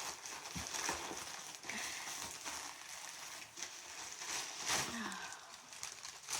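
Parcel packaging rustling and crinkling, with scratchy clicks, as it is handled and cut open with scissors.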